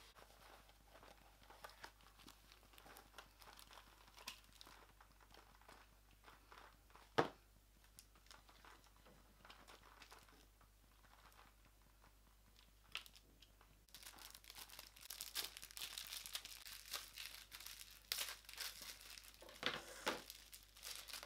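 Faint crinkling of a thin clear plastic sleeve as sunglasses are unwrapped and handled, with one sharp click about seven seconds in. The crinkling grows denser over the last third.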